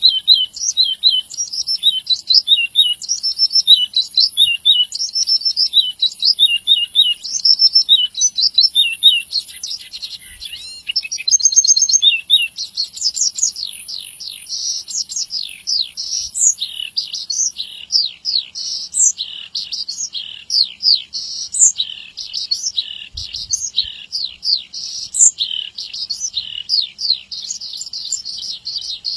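Horsfield's bush lark (branjangan) singing nonstop in a rapid, varied string of high chirps and trills. The song turns denser and faster about halfway through.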